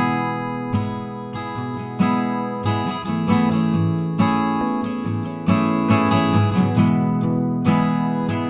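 Background music: acoustic guitar, plucked and strummed notes in a steady rhythm.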